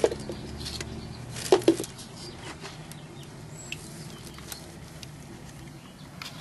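Plastic bag rustling and crinkling as the bagged cups of cuttings are handled, with two sharp louder crinkles about a second and a half in, then faint scattered ticks.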